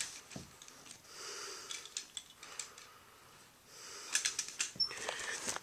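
Soft breathing close to the microphone, two breaths, with a few light clicks near the end.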